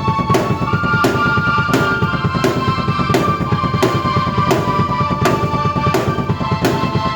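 A drum kit and a keyboard played together by one player: a steady beat with a strong hit about every two-thirds of a second over a busy bass drum, under held keyboard notes.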